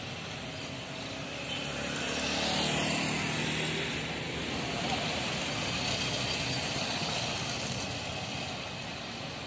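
A motor scooter passes close by, its engine swelling to its loudest a couple of seconds in and then fading. Under it is the steady running of bus engines and traffic.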